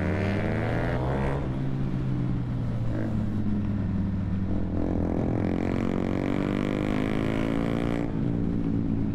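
Suzuki Hayabusa's inline-four engine, running through a Brocks full-system exhaust, pulling under throttle. Its note rises through the first second and again from about five to eight seconds, each time dropping suddenly as the next gear is taken.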